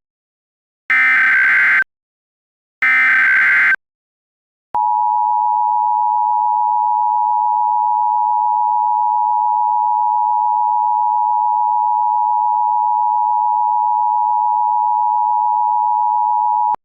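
Emergency Alert System tones: the last two of the three SAME header data bursts, each a second-long screechy digital chirp, then about a second of silence, then the EAS two-tone attention signal, a loud steady dual tone held for about twelve seconds.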